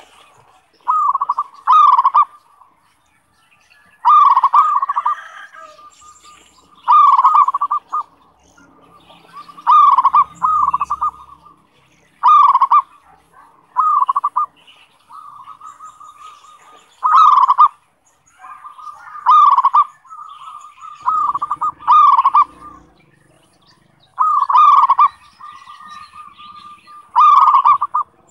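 Zebra dove (perkutut) cooing its short rhythmic song phrase over and over, about one phrase every two to three seconds.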